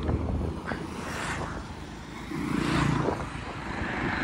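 Traffic passing on a highway: a motorbike or car engine with tyre noise swells and fades about two-thirds of the way in.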